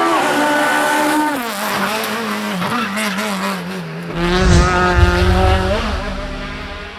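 Racing car engine running hard, its pitch dropping sharply about a second in and then rising and falling through the revs. It gets loudest with a deep rumble and crackle a little past halfway, then fades away as the car moves off.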